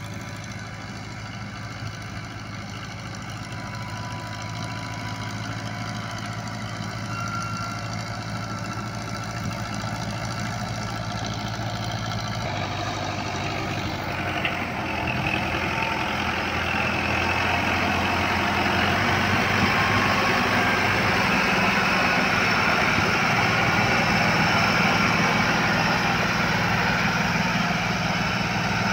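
Diesel farm tractor engine running steadily, growing louder as the tractor comes close.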